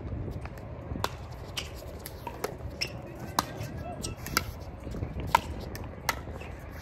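Pickleball paddles striking a plastic pickleball: sharp, hollow pops at irregular intervals, roughly one every half second to a second, over a steady low rumble.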